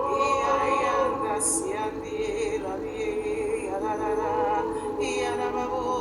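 Spontaneous worship singing: voices holding long, wavering notes, layered over one another, with an occasional hissed syllable.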